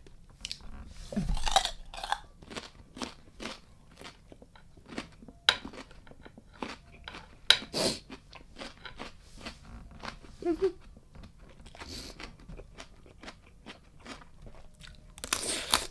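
A person biting and chewing raw blue crab salad close to the microphone: irregular crunches and cracks, a few of them sharper and louder, with a louder burst near the end.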